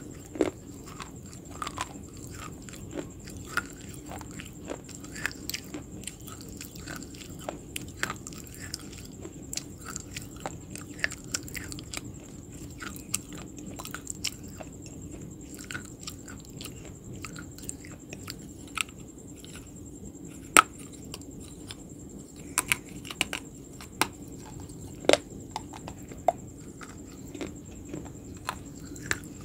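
Close-up chewing of something crunchy, with irregular crisp crunches and mouth clicks throughout. A few sharper, louder crunches come in the second half.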